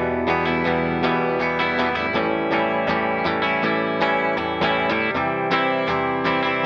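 Rickenbacker 325 electric guitar on its bridge pickup alone, strung with Thomastik flatwound strings and played through a Vox AC30 amp: chords in a steady, even rhythm.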